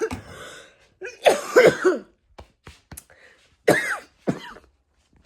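A woman coughing and clearing her throat in two short fits, with a few faint clicks between, from a popcorn kernel caught in her throat.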